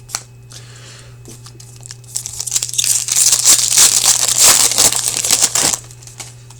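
A foil hockey card pack being torn open and its wrapper crinkled: a loud, dense crackling rustle from about two seconds in until shortly before the end, after a few light clicks.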